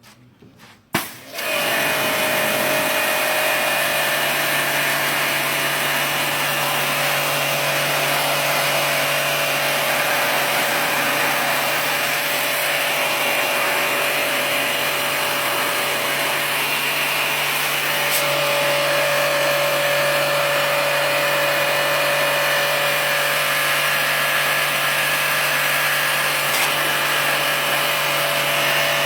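A motor-driven machine starts abruptly about a second in and runs steadily, with a low hum and a higher whine over a rushing noise.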